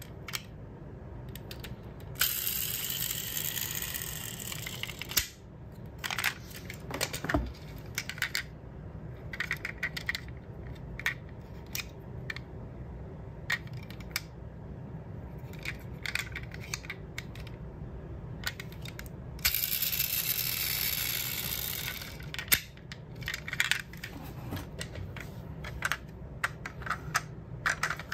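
Diecast metal model cars being handled: many small clicks and taps of metal and plastic parts, such as doors, spoiler and bonnet being worked. There are two stretches of rustling noise of about three seconds each, one a couple of seconds in and one about twenty seconds in.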